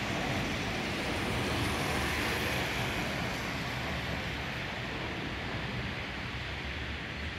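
Steady road traffic noise, an even rush of passing vehicles and tyres that eases slightly in the second half.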